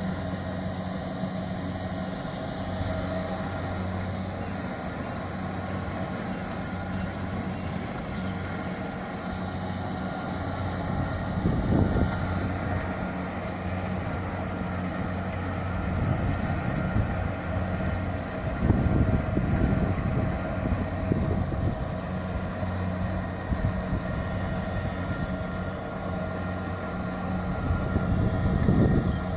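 Kubota DC-70 Plus combine harvester's diesel engine running steadily, with several louder swells of mechanical noise partway through and near the end.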